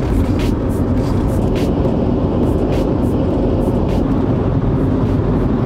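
Car driving at highway speed, heard from inside the cabin: a loud, steady rumble of road and engine noise with faint clicks now and then.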